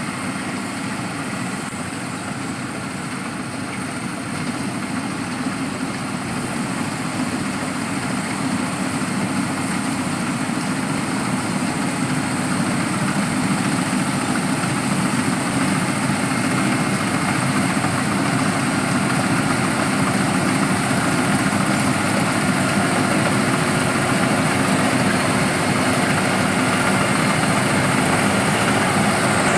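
Rice harvesting machine's engine running steadily, getting gradually louder.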